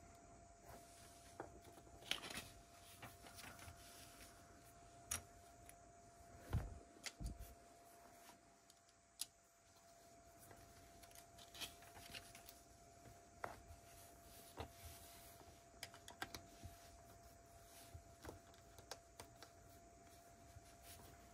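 Plastic Lego pieces being handled and snapped together by hand: scattered small clicks and taps at irregular intervals, with a couple of duller knocks about six and seven seconds in, over a faint steady hum.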